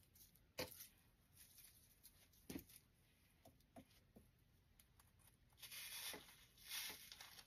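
Faint rustling and scratching of an artificial flower stem being pushed into a grapevine wreath, in two short spells near the end, after a few soft clicks; otherwise near silence.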